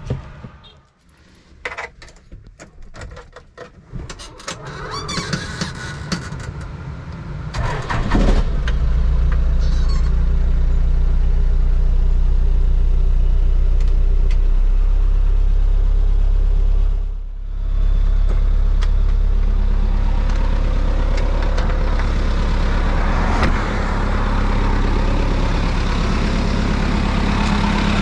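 Toyota Land Cruiser BJ73's 13B-T four-cylinder turbodiesel being started: a few seconds of clicks and mechanical rattling, then the engine catches about eight seconds in and settles into a steady diesel idle.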